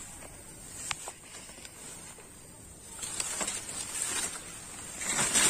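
Footsteps swishing through tall grass and weeds, with a steady high-pitched hiss in the background. The rustling grows from about halfway and is loudest near the end.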